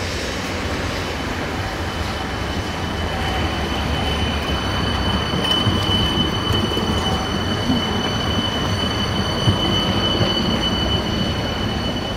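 Autentic low-floor tram rolling slowly past on curved street track, its wheels and running gear rumbling low. A steady high-pitched wheel squeal comes in about three seconds in and is loudest in the second half.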